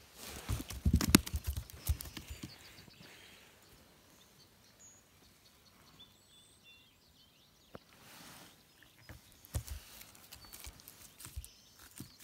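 A small catfish flopping and slapping on a boat's carpeted deck: a quick flurry of dull thuds in the first two seconds, then scattered slaps again near the end.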